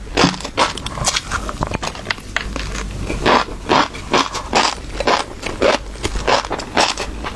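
Close-miked crisp crackling and crunching of fish roe, an irregular run of short bursts about two a second.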